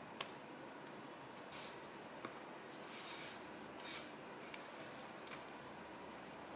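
Faint soft brushing and scraping of a fried donut being rolled and pressed in powdered sweetener on a plate, with two small clicks, one just at the start and one about two seconds in.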